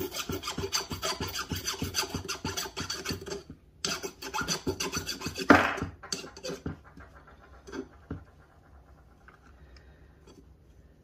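A hand file scraping in quick back-and-forth strokes across the edge of a freshly crimped 2/0 cable lug, deburring the sharp edges left by the over-crimp. There is a short break about three and a half seconds in, then more strokes with one louder stroke about five and a half seconds in. The filing stops about two-thirds of the way through.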